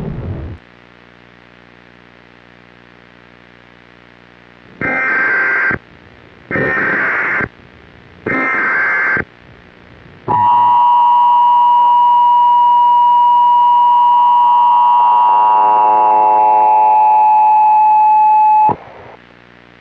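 Emergency Alert System SAME header: three one-second bursts of two-pitch digital data tones, followed by the long steady EAS attention tone, which sags slightly in pitch and cuts off sharply after about eight seconds. A faint steady hum runs underneath.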